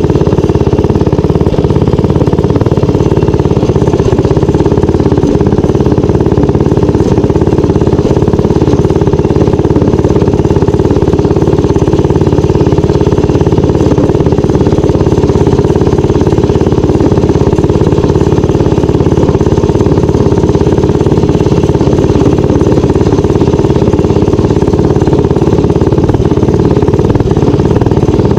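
Minibike's small engine running loud and steady while being ridden along a trail, holding an even pitch throughout.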